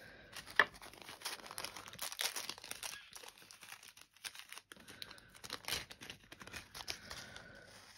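Small plastic bags crinkling and rustling as they are handled, with many light clicks and one sharp click about half a second in.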